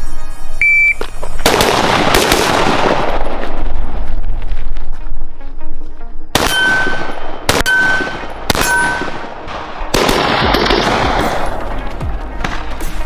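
Gunshots from real firearms: single loud shots a second or more apart, some in quick pairs, each followed by a long fading echo.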